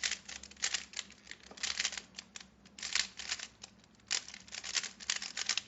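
Magnetic Rubik's Speedcube being turned in quick runs of layer moves, its plastic pieces clicking and scraping, about one burst of turns a second. The cube is freshly lubed but not yet broken in, and still feels scratchy.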